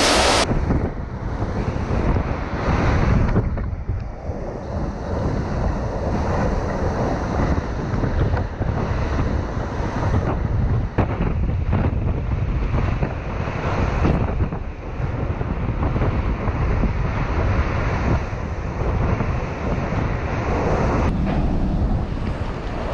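Hurricane-force wind blowing in heavy gusts, buffeting the microphone, with the rush of wind-driven rain and thrashing trees.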